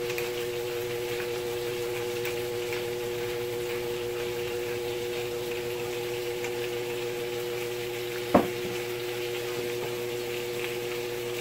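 Chicken frying in a pan: a steady sizzle with faint scattered crackles over a steady hum. One sharp knock sounds about eight seconds in.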